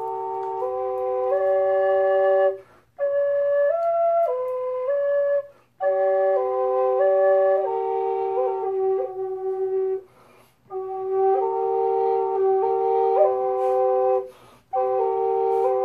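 Double drone flute with two joined cane pipes, played with one steady drone note held under a simple stepping melody on the other pipe. The tune comes in five phrases, each broken off by a short breath.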